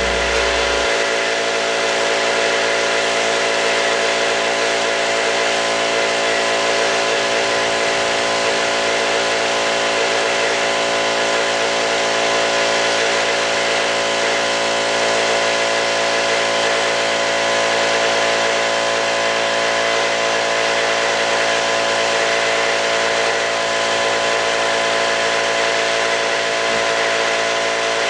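A machine running steadily at constant speed: a continuous hum with many steady tones that holds without change.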